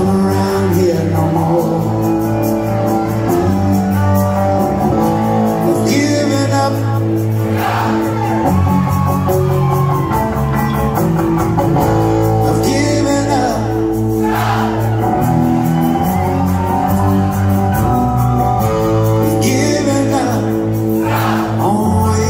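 Live rock band playing with a singer, guitar and bass: sustained chords over a bass line, with a bright swelling sweep about every seven seconds.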